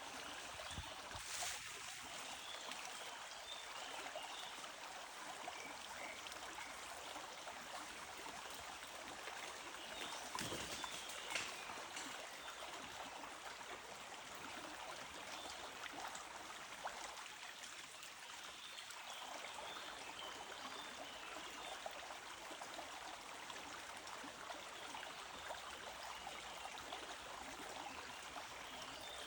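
Stream water running steadily, with a couple of brief knocks about a second and a half in and again around ten to eleven seconds in.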